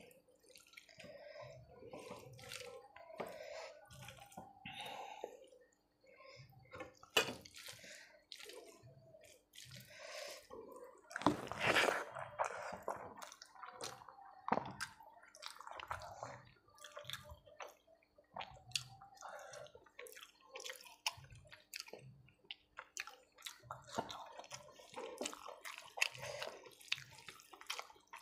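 Wet, sticky squishing of a bare hand kneading rice with a soft vegetable curry on a steel plate, along with close-up chewing and lip smacks, in an irregular run of short clicks and smacks. The loudest burst comes about twelve seconds in.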